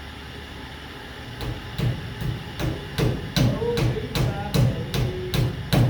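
Hammer blows struck in a steady rhythm, about two to three a second, starting about a second and a half in over a low steady hum.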